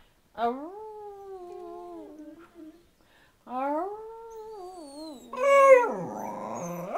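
Dachshund howling: three long, wavering howls that rise and then sag in pitch, the last the loudest and turning rough as it drops away.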